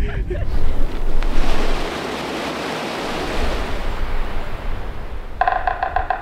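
A steady rushing noise like wind, louder for the first couple of seconds. Near the end, a pitched, pulsing tone comes in over it.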